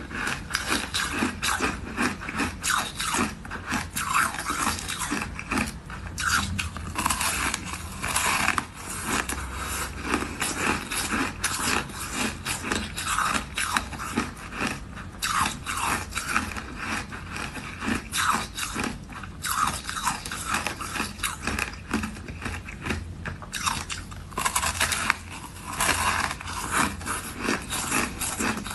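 A block of crunchy, granular purple flavoured frozen ice being bitten and chewed, a dense run of crunches and crackles with hardly a pause.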